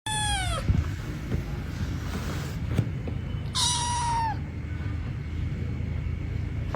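Kitten meowing twice: two short high calls a few seconds apart, each dropping in pitch at the end, with a single sharp click between them.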